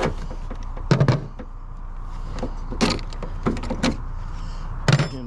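A few separate sharp knocks and metal clanks of tools and battery hold-down hardware being handled, about five in all and spread out irregularly, over a steady low hum.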